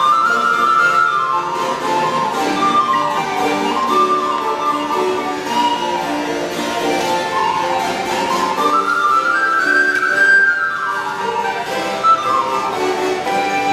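Live early music for recorder, violin and harpsichord, the recorder leading with quick runs that rise and fall over the accompaniment.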